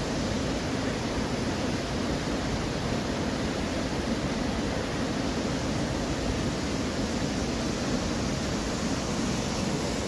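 Waterfall, with a steady rush of falling water that does not change.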